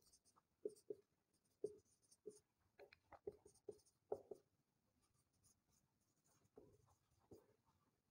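Faint marker pen writing on a whiteboard: a scatter of short strokes and taps, with a few brief squeaks about three seconds in.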